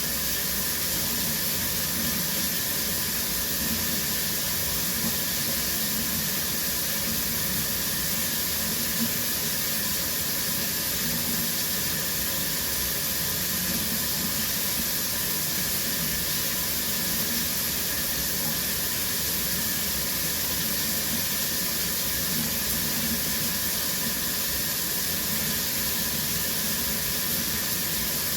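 Shower running steadily, water spraying from the shower head and splashing down, a constant even hiss.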